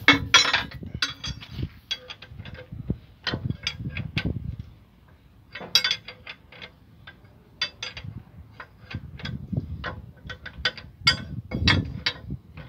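Ratchet wrench clicking in short, irregular runs while turning bolts on an excavator's track chain guard, with odd metal clinks.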